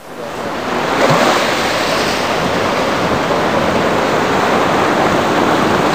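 Sea surf washing onto a sandy beach: a steady rushing sound of waves that fades in over the first second.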